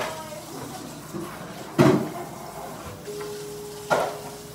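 Two sharp knocks about two seconds apart, the first with a heavier thud. A faint steady tone starts about three seconds in.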